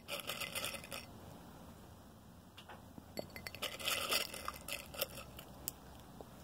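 Crunching and rustling of kettle corn close to the microphone, in two bursts: one lasting about a second at the start and another from about three to four and a half seconds in, with scattered sharp clicks between them.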